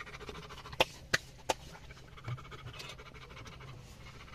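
A dog panting steadily. About a second in come three sharp taps in quick succession, roughly a third of a second apart.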